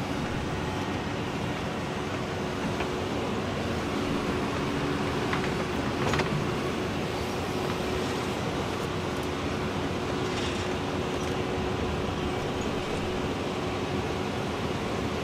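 Doosan DX235LCR short-tail-swing excavator running under load as it digs, its diesel engine and hydraulics making a steady drone with a steady hum. A sharp knock about six seconds in, and a fainter one near ten seconds, come from the bucket working the dirt.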